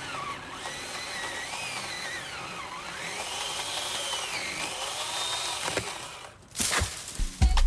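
Hyper Tough 9-amp corded electric chainsaw running, its motor whine wavering up and down in pitch. It stops about six seconds in. A short loud burst follows, and music begins right at the end.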